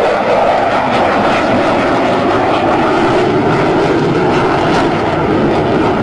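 Fighter jet's engine noise as it flies past: a loud, steady, dense roar.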